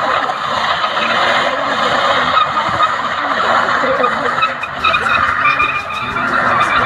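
Car doing a burnout: tyres spinning and screeching on the road surface, with the engine held at high revs.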